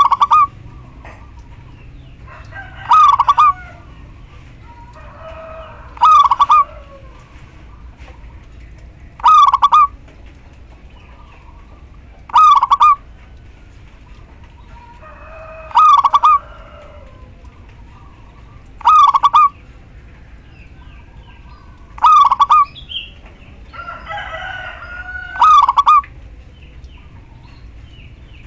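Female zebra dove calling: a short, loud, repeated call about every three seconds, nine times. This is the call that lures male doves into singing.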